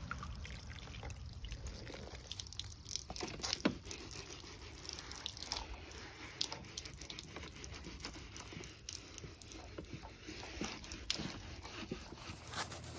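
Soapy water dripping and trickling from a soaked microfiber towel as it is lifted from a wash bucket and wiped over a truck's door, with scattered small crackles and splashes.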